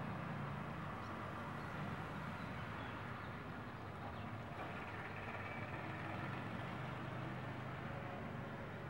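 Steady low mechanical hum over an even background rumble, unchanging throughout.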